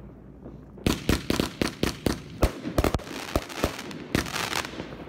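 Firecrackers and fireworks going off: a quick, irregular string of sharp bangs, several a second, starting about a second in, with crackling between them.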